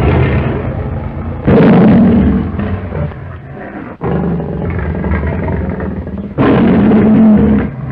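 Lion roars of the MGM 'Tanner' roar sound effect, played as several roars one after another. Each starts abruptly, and the loudest come about a second and a half in and again near the end.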